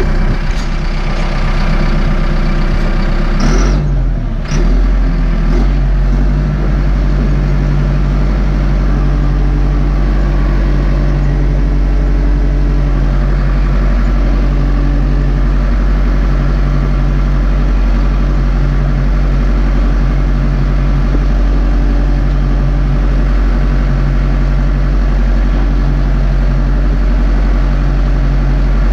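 Caterpillar D5K crawler dozer's diesel engine running steadily, heard from inside the cab. A few sharp knocks and rattles come about four seconds in.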